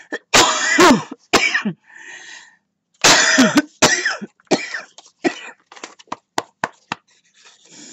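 A smoker with asthma in a hard coughing fit: a loud bout of coughs near the start and another about three seconds in, then a string of smaller coughs that trail off.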